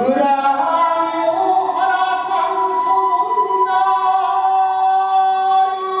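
Kagura chant sung in long, drawn-out held notes that step up and down in pitch now and then, with no drumming.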